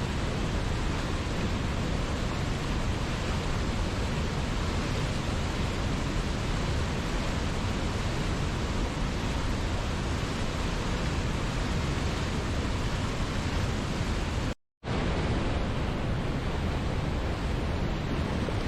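Steady, even rushing of a waterfall. It cuts out completely for a split second about fifteen seconds in, then resumes unchanged.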